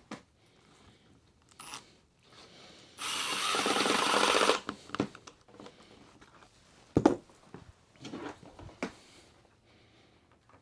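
Cordless drill-driver running for about a second and a half, driving a screw into the torsion box's wooden frame. A few sharp knocks and clicks of tool handling follow, the loudest about seven seconds in.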